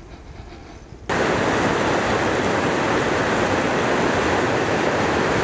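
Water rushing over a small river weir: a steady, loud rush of white water that starts abruptly about a second in, after a short quiet stretch.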